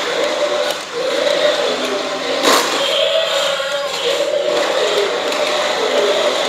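Battery-powered RC dinosaur toys running: small gear motors whirring under a repeating electronic sound effect from the toys' built-in speakers. A single knock comes about two and a half seconds in.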